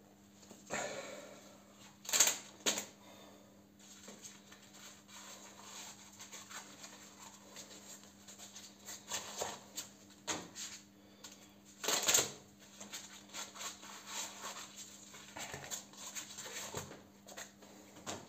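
Hands handling a freshly bent steel bolt and its wrapping: irregular rustling and light clicks, with a few loud, short bursts of noise about two seconds in and again near the middle.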